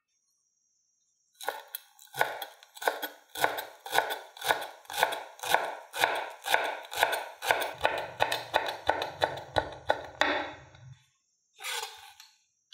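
Chef's knife chopping fresh coriander on a bamboo cutting board: an even run of sharp knife strokes on the wood, about two to three a second, starting about a second and a half in and stopping shortly before the end.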